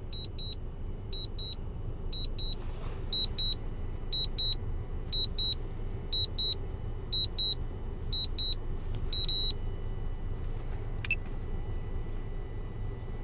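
Drone remote controller beeping: pairs of short high-pitched beeps about once a second. This is the controller signalling that the drone is returning home on its own after its mission ended. The beeps stop about nine and a half seconds in, over a steady low hum, with a single click a little later.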